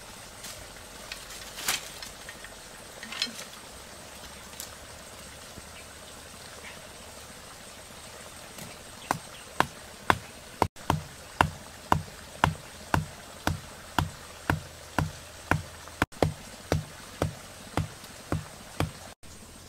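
A wooden stake being pounded into the ground by hand, a steady run of sharp knocks with a dull thud under each, about two a second, starting about halfway through. Before that only a few scattered knocks.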